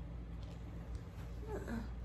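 Quiet room tone with a steady low hum, and a brief faint murmur of a voice near the end.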